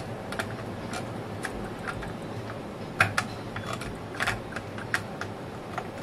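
Irregular small clicks and light scrapes of a circuit board being eased by hand out of a metal amplifier chassis, with a slightly louder click about halfway.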